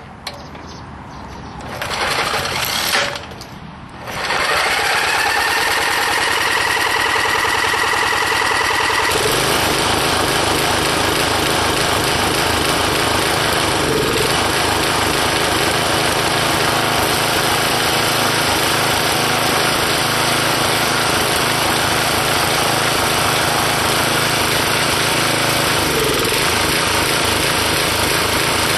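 Old tiller's small engine, converted to run on propane through a gas-grill burner valve, cranked by its electric starter in short bursts. It catches about four seconds in, picks up speed, and runs steadily, its sound settling about nine seconds in.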